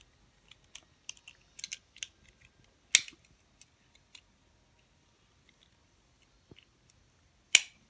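Scattered small plastic clicks and taps from a Beyblade launcher and its ripcord being handled and loaded, with two sharper clicks, one about three seconds in and one near the end.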